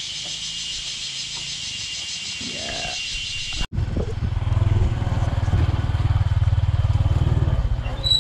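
A steady high-pitched buzz that cuts off suddenly about three and a half seconds in, giving way to a small motorcycle engine running under way, a louder low, fast-pulsing drone.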